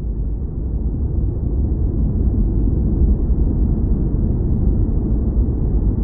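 Sci-fi spaceship-cockpit ambience: a steady, deep rumbling noise like brown noise, with nothing in the upper pitches. It swells a little over the first couple of seconds, then holds level.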